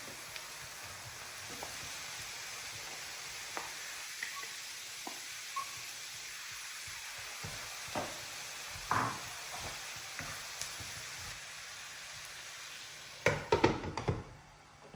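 Food sizzling steadily in a frying pan while being stirred, with occasional scrapes and taps of a utensil on the pan. Near the end comes a quick burst of loud clattering against the pan, and the sizzling dies down.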